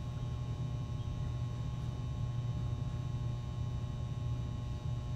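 Steady low hum with no other event: room tone.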